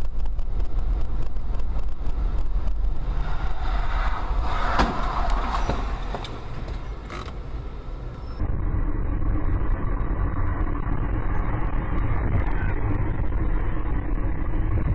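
Dash cam recording of road and engine noise heard inside a car, at first driving on a wet street. A brief sharp knock comes a little past the middle. About eight seconds in the sound changes abruptly to the steadier, lower drone of a car driving on a highway.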